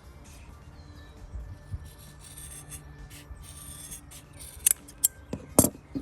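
Nylon seatbelt webbing being cut: rasping, sawing strokes through the tough weave, then a few sharp snips near the end.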